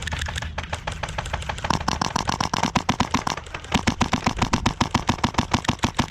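Airsoft electric guns firing on full auto, a fast, even rattle of shots that goes on without a break.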